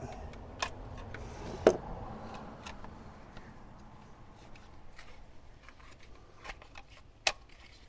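A Volkswagen Golf Mk3 distributor cap being unclipped and handled: a scatter of sharp small clicks and knocks, with the loudest a little under two seconds in and another near the end.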